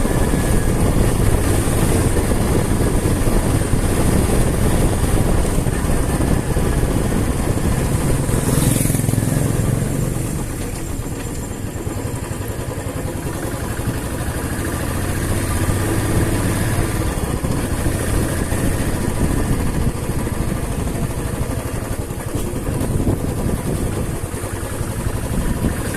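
Motorcycle engine running while riding, with steady road noise. A short hiss comes about nine seconds in; the engine then eases off and picks up again a few seconds later.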